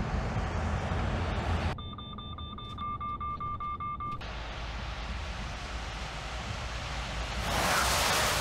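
Mercedes Actros truck running, with the cab's collision-warning alarm beeping rapidly for about two and a half seconds: the Active Brake Assist warning of an obstacle ahead. A louder rushing noise rises near the end.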